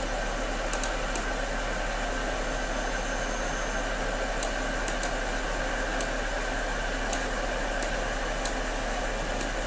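Steady hiss of a recording microphone with a low mains hum, broken by a dozen or so light, scattered clicks of a computer mouse.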